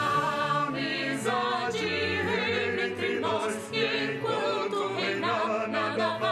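A choir of voices singing a song in Portuguese, with held instrumental notes beneath.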